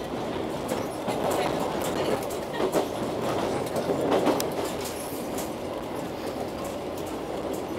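Passenger train running, heard from inside the coach: a steady rumble of wheels on rail with scattered clacks as the wheels cross rail joints.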